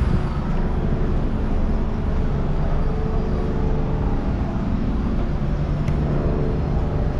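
Steady low rumble of city street noise, with traffic running.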